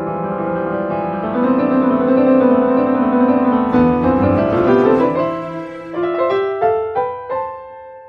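Instrumental piano music: full held chords for the first five seconds or so, then single notes struck one after another, each ringing and fading, thinning out near the end.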